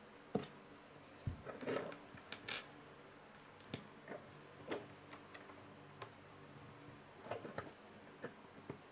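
Plastic Lego pieces clicking together and tapping on a wooden tabletop as they are fitted by hand: scattered, irregular soft clicks and taps, with a low thump a little over a second in and a sharper click about two and a half seconds in.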